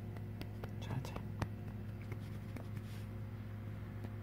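Domestic cat purring steadily and low, close up, with scattered soft clicks and rustles from handling over the first three seconds, the sharpest about a second and a half in.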